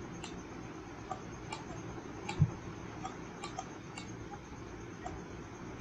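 Light, irregular ticks of a stylus tapping and sliding on a writing tablet as a word is handwritten. There is one duller, louder low thump about two and a half seconds in.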